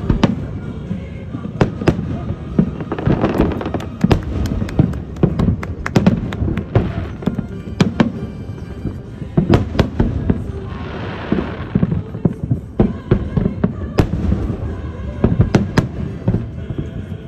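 Fireworks going off in quick succession: many sharp bangs, with a stretch of dense crackling hiss a little past the middle.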